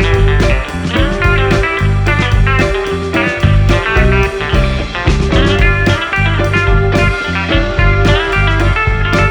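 Background music: guitar-led blues-rock with a steady beat.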